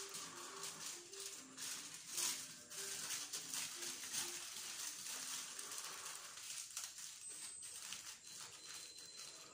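Aluminium foil crinkling and rustling as it is opened and handled by hand, in many small irregular crackles. A faint simple tune plays underneath for the first few seconds.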